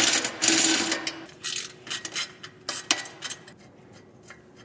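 Ratcheting clicks from a hand ratchet mechanism, fast and dense at first, then slowing to separate clicks that fade out.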